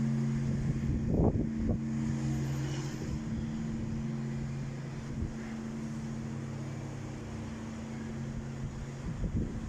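Deep hum of the great bell of a church belfry ringing out and slowly fading between strokes of the blagovest, the slow tolling of the one big bell that announces a service. Wind gusts on the microphone about a second in and near the end.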